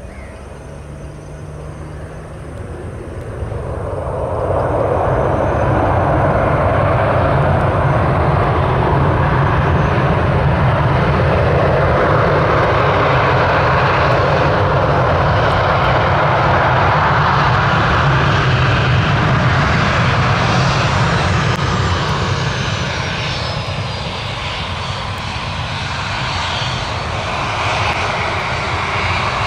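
An airliner's engines passing close, building over a few seconds to a loud, steady noise. A high whine falls in pitch as the aircraft goes by, then the noise eases briefly before swelling again.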